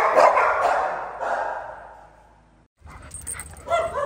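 A dog barking loudly, the sound fading away over about two seconds; after a brief break, a dog whining in short high yelps near the end.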